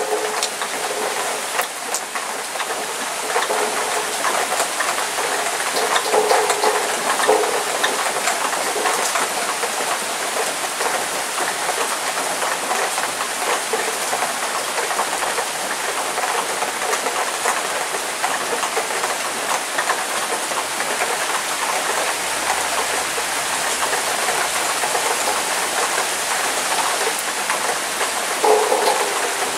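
Heavy downpour: rain pouring steadily, a dense even hiss of rain hitting the ground and surfaces.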